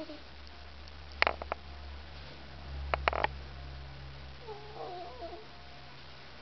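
Pet ferret snoring in its sleep: clusters of short clicks about a second in and again about three seconds in, then a wavering, squeaky whistle near the end.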